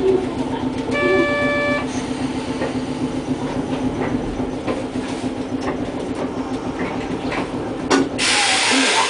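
Streetcar running slowly on street track, its motor and running gear giving a steady hum and rumble. A short held horn toot sounds about a second in, and a burst of hissing air comes in near the end.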